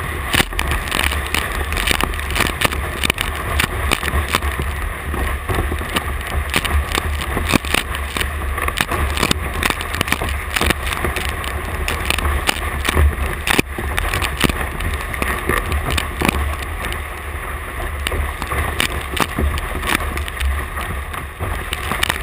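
Water rushing and splashing around a one-person outrigger canoe's hull as it is paddled through choppy waves, with repeated sharp splashes from paddle strokes and spray over a steady low rumble.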